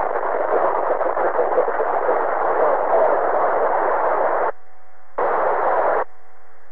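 Radio static hiss over a 2-metre amateur FM radio link with no voice on it. The hiss cuts out about four and a half seconds in, comes back briefly, then cuts out again near the end, leaving a faint steady hum of a few low tones.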